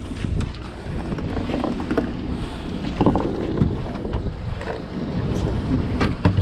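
Wind buffeting the microphone over the low rumble of a boat, with scattered knocks and clatter on deck.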